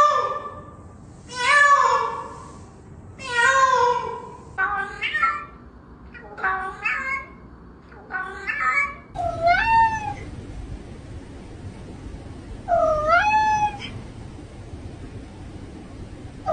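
Cats meowing, a dozen or so meows: three long loud ones, then a run of shorter ones. From about nine seconds in come two long meows that dip and then rise in pitch, over a steady hiss.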